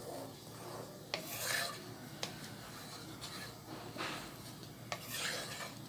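Wooden spoon stirring hot sweetened milk in a nonstick pot, scraping round the pan in two quiet swishes, with a few light taps of the spoon against the pan, as the sugar is stirred in to dissolve.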